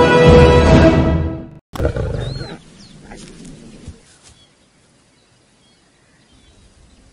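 Intro music fades and stops about a second and a half in; after a brief gap a young lion gives a short, low growl, under a second long, that trails off into faint grassland background.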